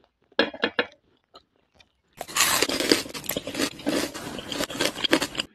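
A person chewing a crispy breaded cordon bleu cutlet close to the microphone: a few crisp crunches about half a second in, then dense, continuous crunching from about two seconds in.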